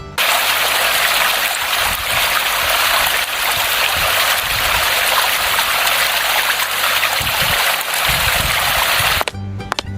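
A steady rush of noise like running water, cutting in abruptly at the start and cutting off abruptly a little before the end.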